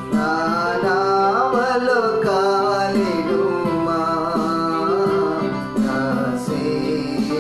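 A man singing a Telugu Christian devotional song to his own electronic keyboard accompaniment, the voice sliding and ornamenting over held keyboard notes.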